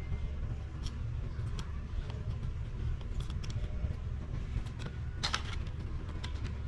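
Scattered light clicks and taps of small parts and tools being handled, over a steady low hum; the clicks come thickest a little past five seconds in.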